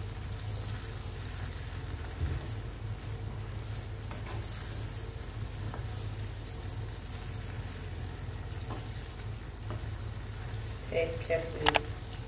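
Wooden spatula stirring fish sauce frying in oil in a pan, with a quiet steady sizzle and soft scraping ticks over a low hum. A couple of sharp clicks come near the end.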